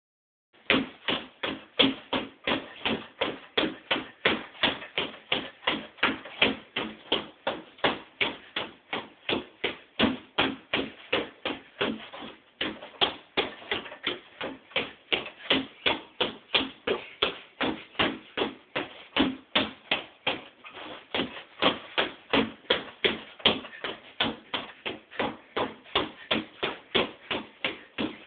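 Freestanding reflex bag being punched in a quick, steady rhythm, about three hits a second.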